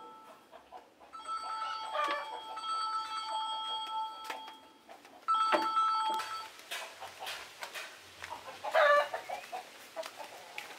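Chickens clucking, with one loud call near the end. Earlier, a steady ringing tone sounds for about three seconds, then again briefly.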